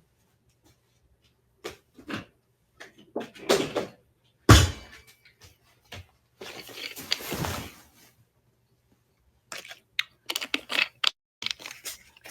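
Handling noises in a small room: scattered knocks and rustling, with one loud thump about four and a half seconds in and a run of clicks near the end.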